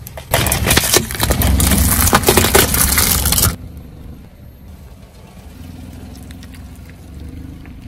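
Car tyre rolling over and crushing plastic toy candy containers: a dense run of loud cracking and snapping for about three seconds, then dropping to a quieter steady rumble of the tyre on asphalt with a few faint clicks.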